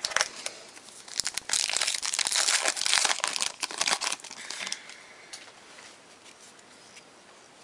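Trading-card pack wrapper crinkling as it is torn open, a dense crackle loudest from about one to four seconds in, then dying down to faint rustles.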